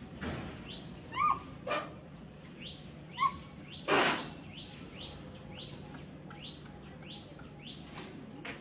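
A bird chirping repeatedly, short rising chirps about two a second, with two louder shrill calls about one and three seconds in and a brief rustling burst about four seconds in.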